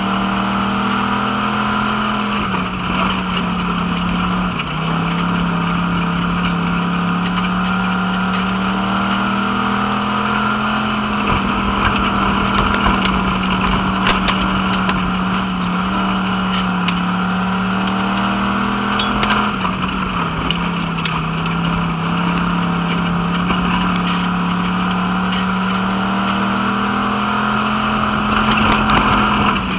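WISSOTA Pure Stock dirt-track race car's V8 engine at racing throttle, heard from inside the cockpit. The note dips briefly every eight to ten seconds as the driver lifts for the turns, then climbs slowly back up along the straights. A few sharp ticks come through now and then.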